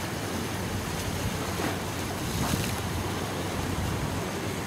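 Wind blowing on the microphone over the steady wash of the sea, an even noise with most of its weight low down.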